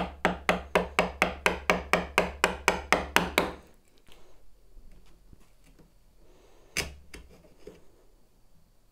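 A mallet striking a Marples bevel-edge chisel in a quick even run of taps, about four a second for three and a half seconds, chopping out the waste of a bridle joint. Then quieter scraping as the chisel pares the wood, with one more single knock about seven seconds in.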